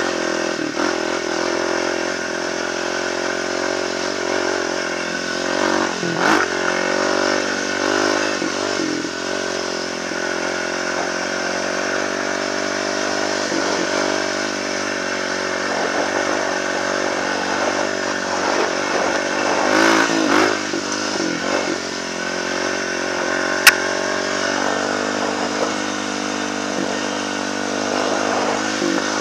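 Kawasaki KLX300 dirt bike's single-cylinder four-stroke engine running under way on a trail, heard from the rider's helmet, its pitch rising and falling as the throttle is rolled on and off. A single sharp click about three-quarters of the way through.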